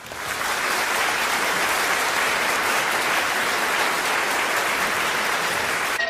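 Audience applauding: a dense, even clapping that swells in over the first half second and then holds steady.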